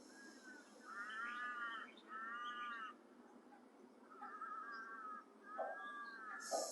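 Birds calling: four drawn-out calls about a second long each, in two pairs. Near the end, a short hiss of the Taoist lung sound, an S sucked inward through the teeth.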